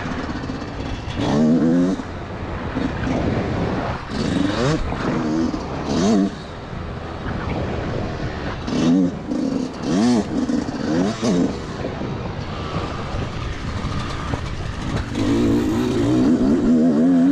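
Yamaha YZ125 two-stroke single-cylinder engine being ridden hard on a dirt track, its revs rising and falling in repeated bursts, with the longest, loudest pull near the end.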